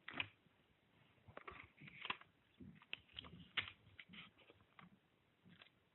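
Faint, irregular crinkles, taps and soft thumps of a sheet of printer paper and Scotch tape being handled and pressed down on a table.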